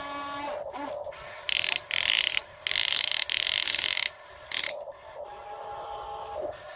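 Radio-controlled excavator's small electric motors and gearboxes running: a steady whine broken by loud, harsh gear-grinding bursts between about one and a half and five seconds in.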